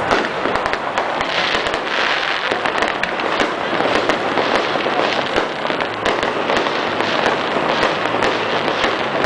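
Fireworks display: a dense, continuous run of overlapping bangs, pops and crackling shells, with no let-up.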